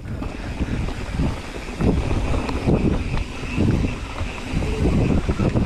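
Mountain bike rolling fast down a dirt forest trail: a steady rumble of knobby tyres on dirt and roots with irregular knocks and rattles from the bike, and wind buffeting the camera microphone.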